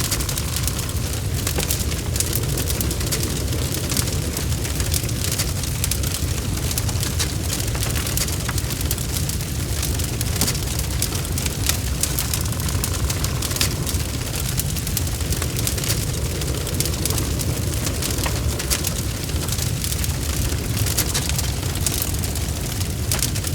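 Fire in a fireplace crackling, with many small irregular pops over a steady low rumble.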